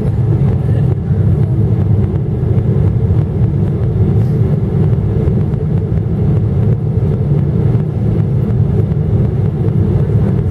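Cabin noise inside a Boeing 777-300ER on approach to land: a steady, low drone of its GE90-115B engines and the rushing air, heard from a window seat beside the engine.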